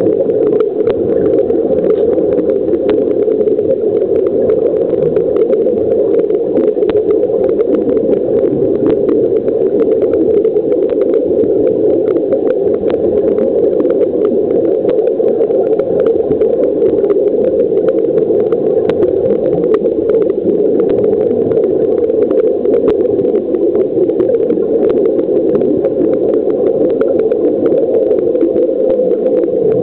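Steady underwater hum of a swimming pool picked up through a camera's waterproof housing, muffled and low, with scattered small clicks and crackles throughout.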